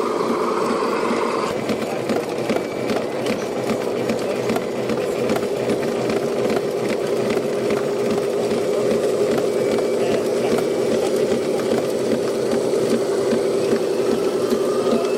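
Small electric motors and plastic gearboxes of RC construction machines whirring steadily, with light rattling and clicking from the gears and tracks. A higher whine drops out about a second and a half in.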